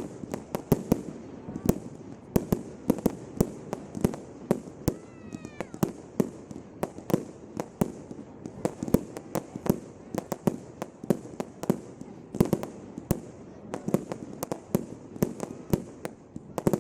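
Display fireworks going off in a rapid barrage: sharp bangs and cracks several times a second, varying in loudness, with no let-up.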